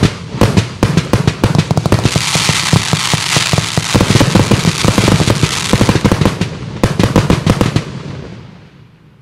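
Fireworks compound cake firing shot after shot in quick succession: a rapid run of sharp launches and bursts, with a dense hiss from about two to six seconds in. A last flurry of shots follows, and then the sound dies away near the end.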